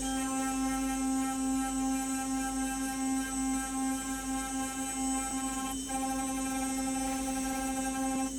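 Spindle of a Hurco BX40i CNC machining centre running at a steady speed while milling an aluminium plate: a steady whine at one pitch with many overtones, briefly dipping about six seconds in.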